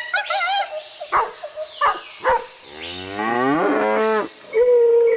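A montage of animal calls. A quick series of warbling calls and three short sharp calls is followed by a long, low bovine bellow that rises in pitch. A loud, steady, drawn-out call begins near the end.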